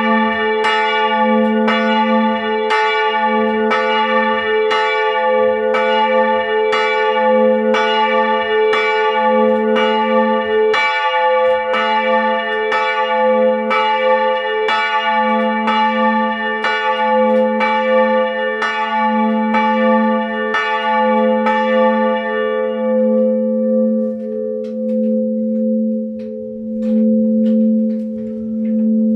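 Two swinging church bells of about 450 kg and 380 kg, struck by their clappers in a steady rhythm, loud and ringing with many overtones. About 22 seconds in the strikes stop and the bells' deep hum rings on and fades.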